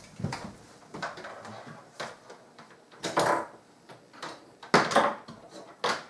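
Irregular knocks, scrapes and rustles of hands working a pendant light's electrical wire against wooden cabinetry. The loudest knocks come close to five seconds in and just before the end.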